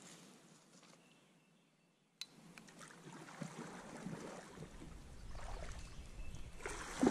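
Kayak paddle strokes splashing and dripping in shallow creek water, faint at first and louder from about two seconds in. A low rumble of wind on the microphone joins in partway through.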